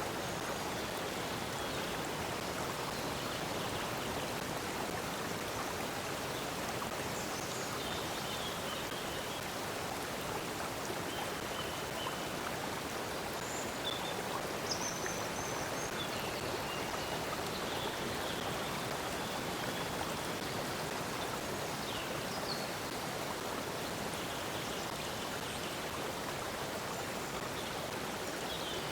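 A stream of water flowing steadily, with faint short bird chirps now and then.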